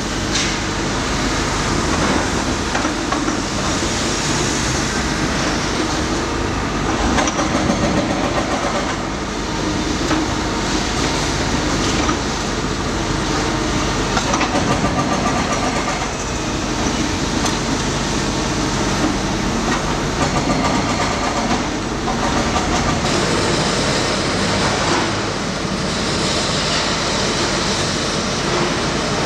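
Tracked demolition excavators, one a JCB JS240, running their diesel engines steadily, with repeated knocks and clatter of broken concrete and steel. In the last few seconds a dust-suppression water hose adds a hiss.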